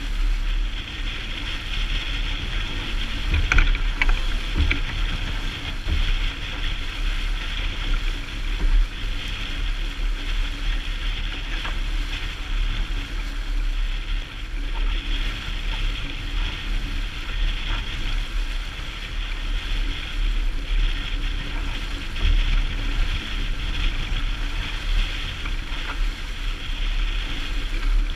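Steady wind and water noise aboard a sailboat heeling under sail in choppy water, with a low rumble of wind buffeting on the microphone. A few short knocks come about four to six seconds in.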